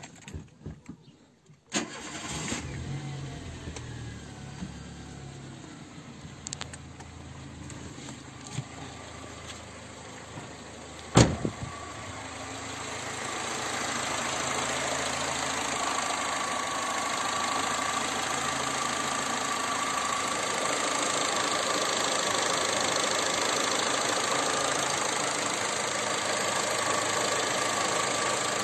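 Car engine starting and then idling with a low steady hum. A single loud sharp click comes about eleven seconds in, after which a steady rushing noise with a faint whine swells up and holds.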